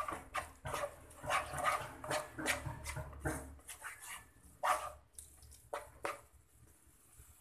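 Wooden spatula scraping and knocking against a nonstick frying pan in quick, irregular strokes while stirring minced chicken, stopping about six seconds in.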